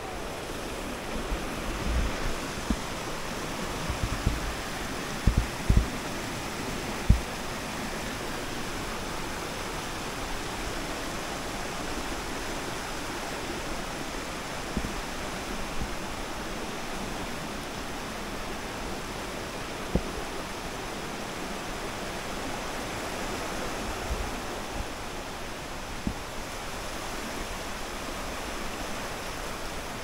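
Steady rush of stream water, with a few short low thumps in the first seven seconds and a couple more around twenty to twenty-six seconds in.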